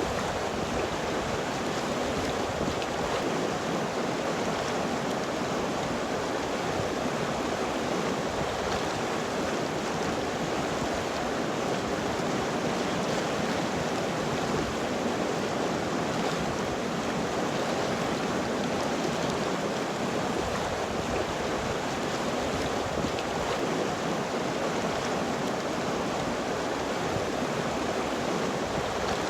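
River water flowing and rushing steadily, an even wash of sound with no break or change.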